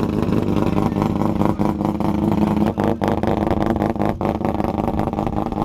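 Peripheral-ported Mazda 13B rotary engine in a Mazda 808 wagon running steadily, with a rapid, uneven pulsing exhaust note. The exhaust is blowing into a cardboard tube held over the tailpipe as a makeshift extension.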